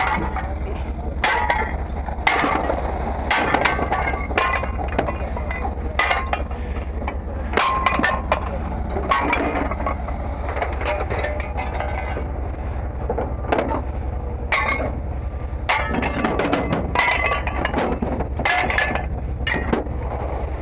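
Scrap metal auto parts being unloaded and tossed onto a pile, a long run of irregular clanks and clinks with some heavier knocks, over a steady low hum.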